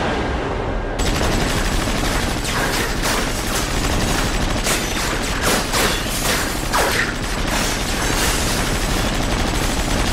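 Machine gun firing in long, unbroken automatic bursts, starting about a second in.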